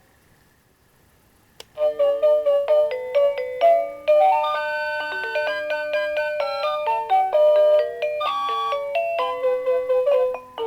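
Seiko NR435P quartz alarm clock playing an electronic chime melody alarm through its small speaker. After a short silence there is a click, and about two seconds in a new tune starts, quick bright notes in several voices.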